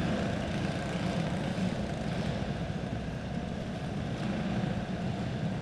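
Several quarter midget race cars' single-cylinder clone engines running together at racing speed, a steady engine drone as the cars lap the dirt oval.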